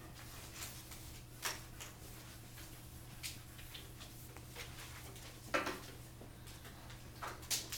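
Quiet classroom room tone: a steady low hum with a few scattered small knocks and rustles, the loudest about five and a half seconds in.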